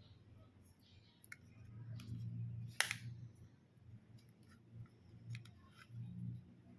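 Hands handling the packaging and product, with a low handling rumble and scattered short clicks and snips; one sharper, louder click about three seconds in.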